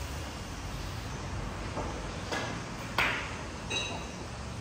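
Billiard balls clicking on a three-cushion table: a faint tap a little over two seconds in, a sharp loud ball-on-ball click about three seconds in, and a lighter ringing click near the end.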